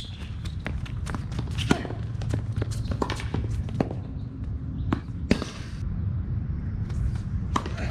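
Tennis play on a court: a run of sharp knocks from a tennis ball bouncing and being struck by rackets, with players' footsteps, over a steady low rumble.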